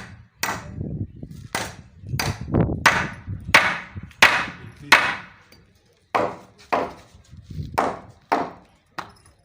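Steady run of hammer blows driving nails into wooden roof timbers, about one or two strikes a second, each with a short ringing tail, pausing briefly about halfway through.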